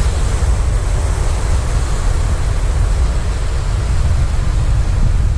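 Sea waves washing and breaking over shoreline rocks, heard under wind buffeting the microphone: a steady low rumble with a hiss of surf.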